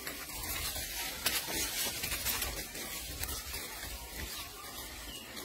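Crackling and rustling of pea pods and dry leaf litter as macaques pick through a pile of pods, with many small clicks and snaps.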